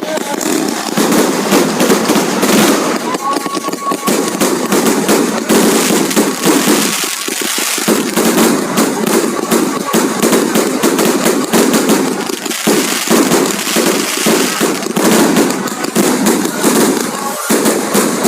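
A dense fireworks barrage: rapid, continuous crackling bangs and pops with barely a gap, thinning briefly twice.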